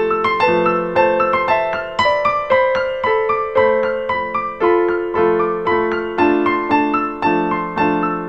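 Background piano music, a steady line of struck notes at about two a second.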